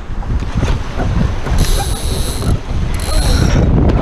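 Sailboat deck hardware ratcheting as a sheet runs through it: two buzzing ratchet runs of about a second each, halfway in and near the end, over steady wind and water rush.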